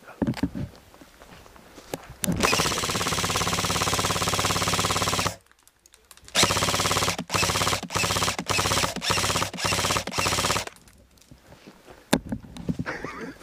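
Automatic gunfire at close range: one long burst of about three seconds, a one-second pause, then a series of shorter bursts back to back for about four seconds.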